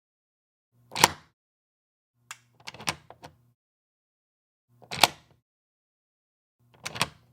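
A door lock being locked and unlocked. There is a single sharp clack about a second in, a quick run of smaller clicks at two and a half to three seconds, another sharp clack around five seconds, and another run of clicks near the end.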